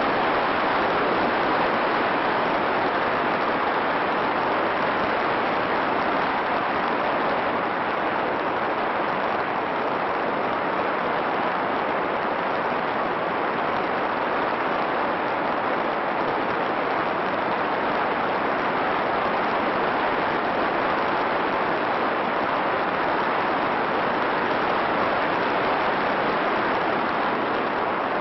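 Steady, even hiss of static with no motor or propeller tone in it, the kind of noise an FPV video receiver's recorder lays on its audio track.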